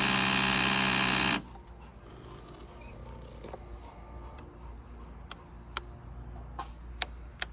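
A 2012 Kawasaki ZX-6R's starting system gives a loud, steady electrical buzz at the press of the starter button, with no engine cranking or firing, and cuts off about a second and a half in. A faint whine follows, then a few sharp clicks near the end.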